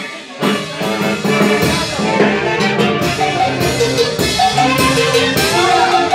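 Brass band music with trumpets and drums playing a dance tune. The sound drops out briefly at the start and comes back about half a second in.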